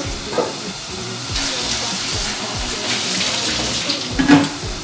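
Kitchen tap running for a couple of seconds, then a sharp clatter near the end.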